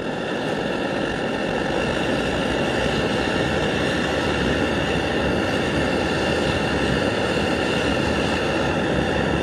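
MSR Dragonfly multi-fuel camping stove burning after priming, an even, unbroken rushing noise with a few faint steady tones in it. The burner is fully hot and burning clean.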